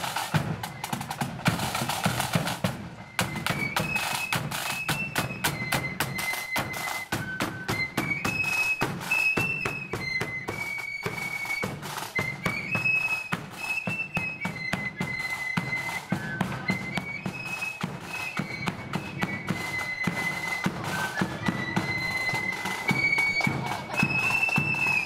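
Marching flute band playing a tune: flutes carry a high, stepping melody over steady snare and bass drum beats. For the first three seconds or so the drums play alone, then the flutes come in.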